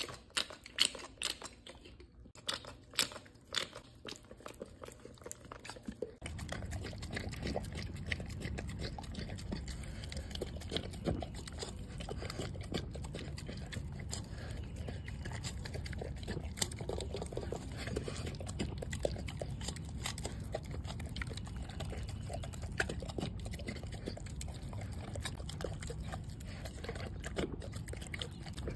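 A few sharp clicks of a pump dispenser squirting oil onto the food. Then a dog eats wet raw ground meat from a stainless steel bowl: chewing, lapping and smacking, with small clinks of the bowl, over a steady low rumble.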